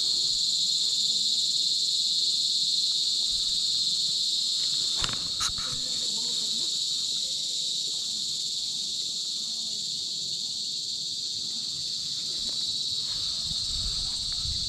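Chorus of insects buzzing, a steady high-pitched sound that does not let up, with a couple of brief clicks about five seconds in.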